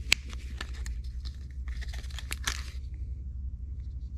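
Handling of a coin presentation box and its plastic coin capsule: a sharp click right at the start, then rustling and crinkling about two seconds in, over a steady low hum.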